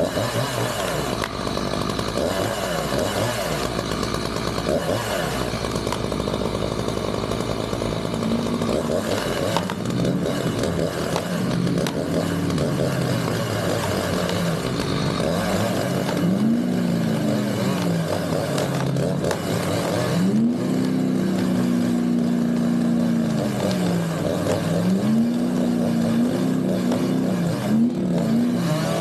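A chainsaw running for the first several seconds, then a vehicle engine revving up and easing off again and again, several times in the second half, as it strains on the pull rope to drag a tree that is hung up in another tree.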